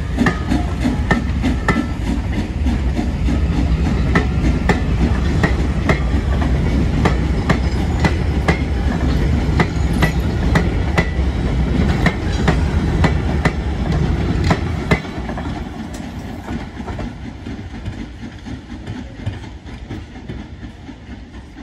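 Heritage passenger coaches rolling past at close range, their wheels clicking in a steady rhythm over the rail joints over a heavy rumble. The rumble drops off suddenly about fifteen seconds in as the last coach goes by, and the clicking fades as the train draws away.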